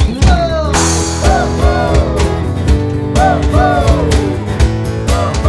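Full band playing an upbeat pop-rock song, with drums, bass and electric guitar. They crash back in together right at the start after a brief thinner break, and a melodic line slides up and down over them.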